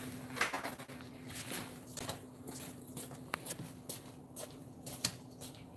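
Irregular soft clicks and rustles over a steady low hum.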